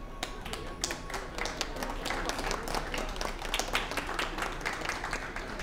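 Audience clapping, a dense patter of hand claps that builds after a held music note ends about a second in.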